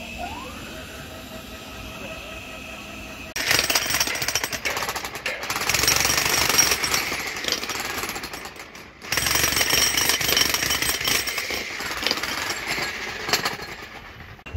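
Handheld demolition hammer (jackhammer) breaking concrete off a pile head with rapid, continuous hammering. It starts about three seconds in, stops briefly around nine seconds, then resumes.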